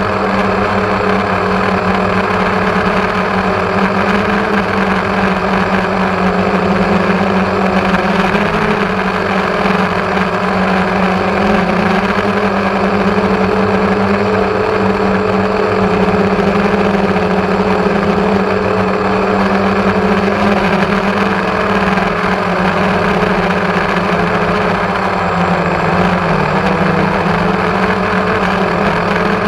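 Electric motors and propellers of a multirotor drone humming steadily in flight, heard close up through the GoPro mounted on it. The pitch shifts slightly now and then.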